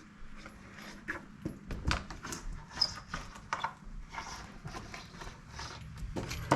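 Spline roller pressed along the channel of a window screen frame, seating the rubber spline over the new mesh: irregular clicks and taps.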